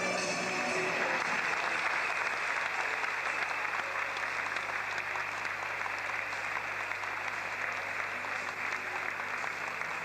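Audience applauding, many hands clapping steadily; music cuts off just at the start.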